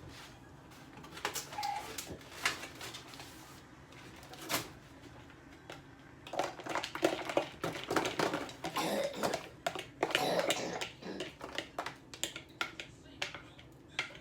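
Irregular knocks, clicks and clatter of things being handled and set down while a refrigerator is cleaned out. Sparse at first, then busy, rapid clattering through the middle before it thins out again.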